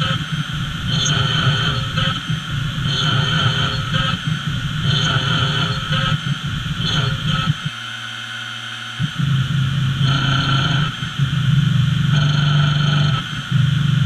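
End mill on a small CNC mill (a modified OpenBuilds MiniMill) helical-ramping down into aluminum, the cutting noise over a steady spindle hum swelling and fading in a repeating cycle about every two seconds. Around eight seconds in there is a brief quieter, steadier patch, then the cutting carries on.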